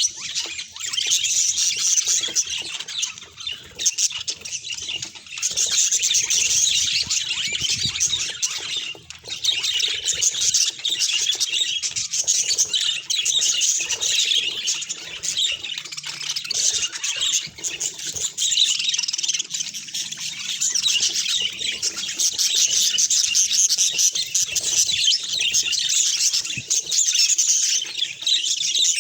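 A parrot chattering and squawking in a rapid, unbroken high-pitched stream, with brief lulls about 3 and 9 seconds in. This is the bird's "tantrum".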